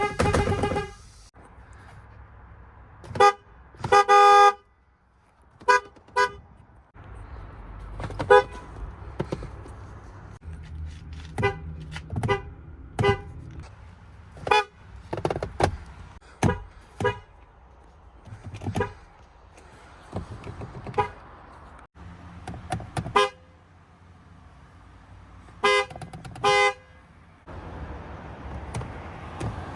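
FCA (Fiat Chrysler) car horns honking in a long series of short toots, about twenty in all. One longer blast comes about four seconds in, and a couple of paired honks come near the end.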